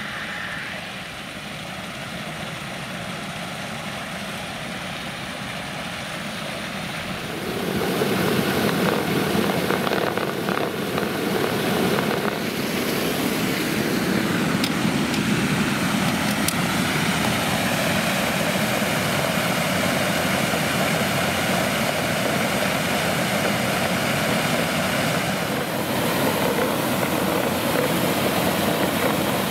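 Water from a fully opened fire hydrant rushing through a hose and out of a red flow-test diffuser, splashing onto the pavement in a steady, loud rush that grows louder about seven seconds in.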